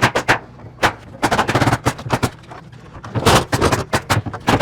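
Nails being driven into the roof in quick runs of sharp shots, about five groups of them.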